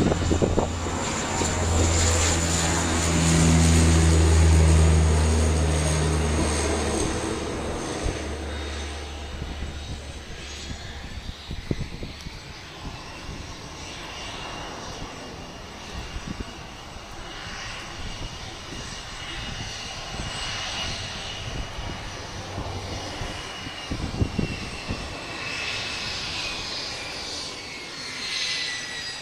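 Twin-turboprop airliner moving along the runway, its propellers droning loudly in the first few seconds, loudest about four seconds in, then fading away. A fainter steady high whine follows and drops in pitch near the end.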